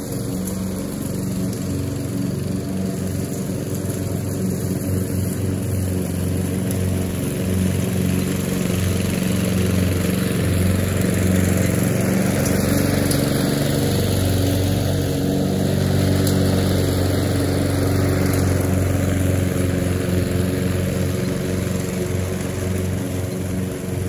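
Walk-behind gas lawn mower's small engine running steadily while cutting grass. It grows louder as the mower comes close about halfway through, then fades as it moves away.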